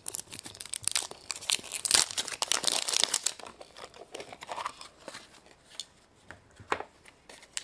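A surprise egg's wrapper being torn open and crinkled by hand: dense crackling for the first few seconds, then lighter scattered crinkles, with a sharp click near the end.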